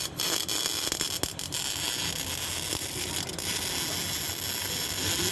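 CO2 (MIG) welder arc welding steel: a steady crackling hiss with a few sharp pops in the first second and a half.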